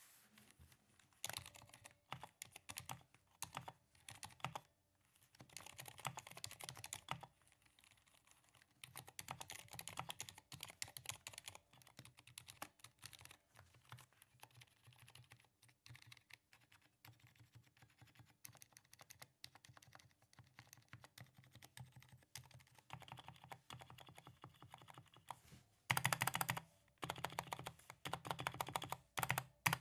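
Typing on a DURGOD K310 mechanical keyboard with Cherry MX Silent switches, its case lined with sound-deadening sheet to soften the keystrokes. The soft keystrokes come in bursts with short pauses, and a faster, louder run of typing starts near the end.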